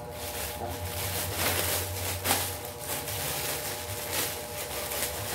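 Clear plastic wrapping crinkling and rustling in irregular bursts as it is pulled off a handbag, over a low steady hum.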